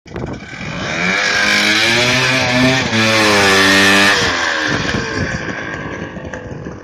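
Two-stroke snowmobile engine revving: the revs climb, hold high for about a second, then drop back and die away over the last couple of seconds.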